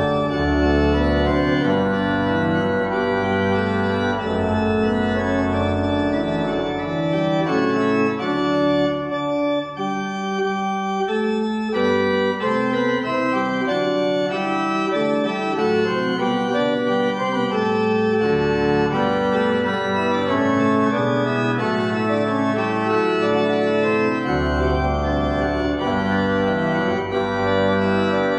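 Church pipe organ playing slow, sustained chords. Deep pedal bass notes sound under the opening stretch, drop out through the middle and come back near the end.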